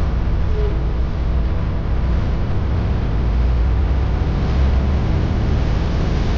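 Tractor-trailer's diesel engine and road noise: a steady low rumble with an even hiss over it and no change in pace.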